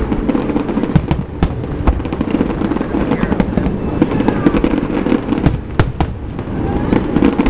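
Fireworks display with aerial shells bursting: many sharp bangs and crackles following one another without pause over a continuous low rumble.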